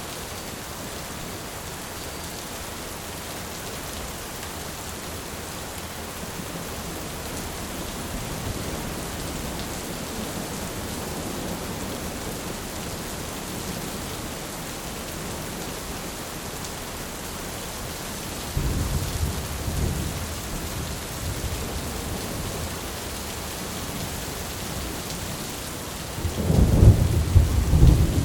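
Heavy rain falling steadily in a thunderstorm, with thunder rumbling: a low roll about two-thirds of the way through, and a louder peal near the end.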